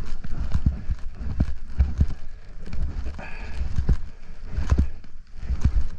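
Running footsteps: an uneven run of dull thumps, two or three a second, with crunchy crackles between strides.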